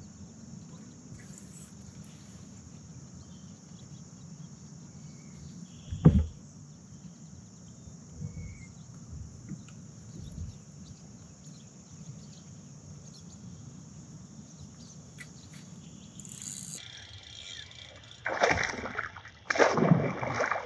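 Insects trilling steadily, with a single sharp knock about six seconds in. Near the end, two loud splashes: a bass slashing at the surface as it hits a lure and spits it out.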